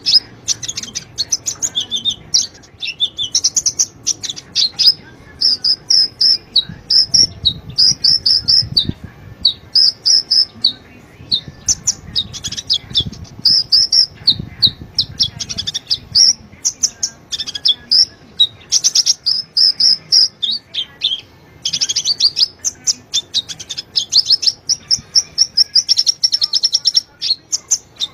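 Konin (kolibri ninja) sunbird singing a fast, high-pitched stream of chirps and trills in quick repeated phrases, with only brief pauses.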